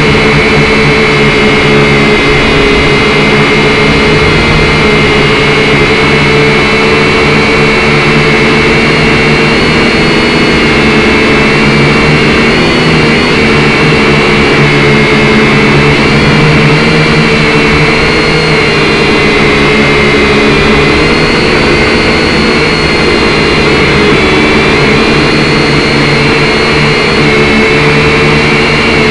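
Syma X5C quadcopter's four small electric motors and propellers whining loudly and steadily up close, the pitch wavering slightly as the drone hovers and shifts position.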